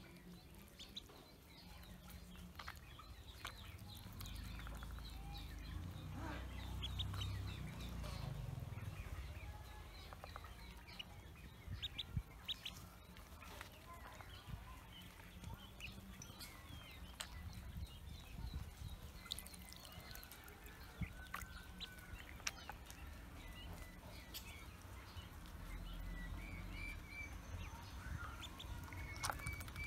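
Pekin ducklings peeping softly in scattered short, high calls as they swim together in a tub of water.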